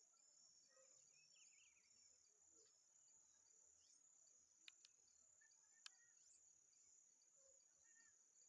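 Faint nature ambience: a steady high-pitched insect trill, with scattered short bird chirps and three sharp clicks a little past the middle.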